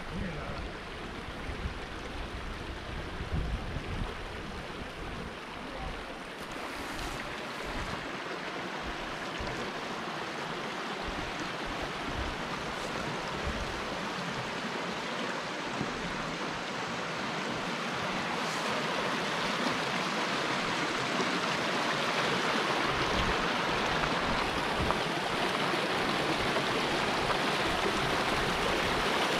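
A shallow creek running over rocks, a steady rush of water that grows louder as the camera nears a small cascade under a bridge.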